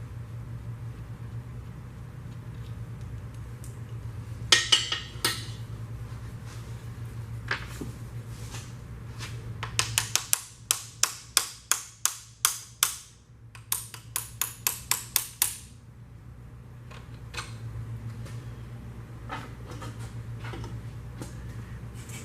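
Hammer tapping on engine parts: a few single strikes, then a quick run of sharp, evenly spaced taps, about three a second, with a short pause partway through. A steady low hum runs underneath.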